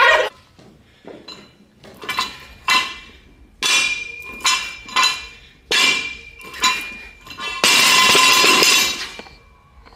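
Metal barbell and weight plates clanking: about eight sharp metallic knocks that ring on, with a longer loud rattling clatter near the end.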